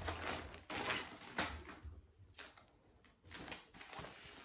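Thin plastic packaging bag crinkling and rustling in irregular crackles as a fabric cushion cover is pulled out of it and opened up.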